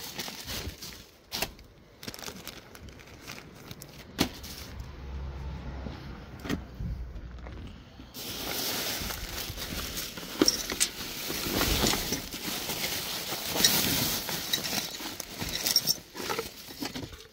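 Plastic bin bags rustling and crackling as a hand rummages through a bag of clothes and oddments, with scattered knocks and clicks from items being moved. A low rumble passes in the middle, and the rustling grows loud from about halfway.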